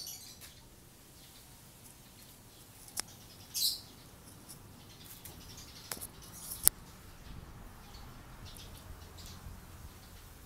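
A few short, high bird chirps, the clearest about three and a half seconds in, over a faint hiss. Sharp single clicks come about three seconds in and twice more around six to seven seconds.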